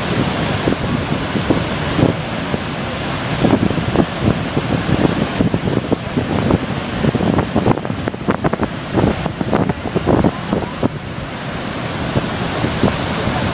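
Horseshoe Falls and the rapids at its brink, a loud steady rush of water, with wind buffeting the microphone in gusts through the middle.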